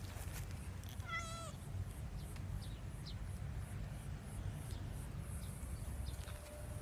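A cat meowing once, a short wavering meow about a second in, over a steady low rumble.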